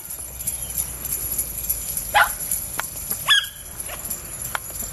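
Small jingle bells strung in a horse's mane and bridle ring steadily, shaken with each stride as it walks. Two short sharp yelping calls stand out, about two and three seconds in.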